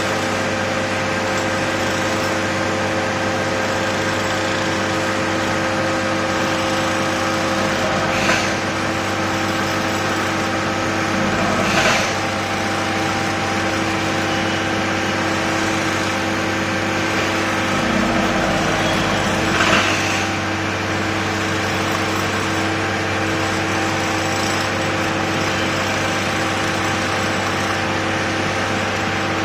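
A construction-site machine's engine running steadily with a constant hum. A few brief, louder knocks cut through it.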